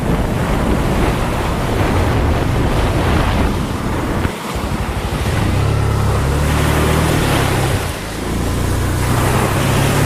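Wind buffeting the microphone of a riding motorcycle, over the low steady note of its engine. The engine note drops out briefly about four seconds in and again near eight seconds, then carries on.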